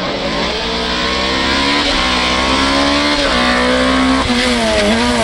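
A VW Golf III rally car accelerating hard toward and past the listener, with loud engine noise. The engine pitch climbs and then drops sharply at upshifts about two seconds in and again a little after three seconds. Near the end the revs waver up and down.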